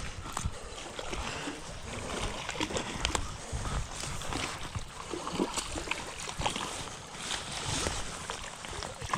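Water splashing and lapping at the shoreline, with scattered small knocks and clicks.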